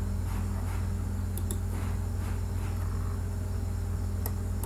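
Steady low electrical hum with a light hiss from the recording setup, and a few faint clicks about a second and a half in and again near the end.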